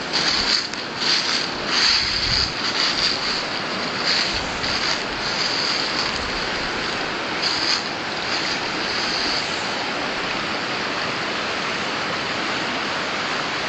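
Shallow river rushing over rocks: a steady rush of water, uneven for the first eight seconds or so, then even.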